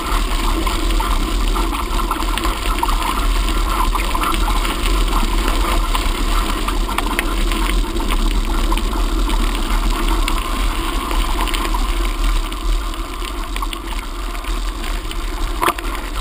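Steady wind rumble on the microphone of a moving bicycle, with small rattles and clicks scattered throughout.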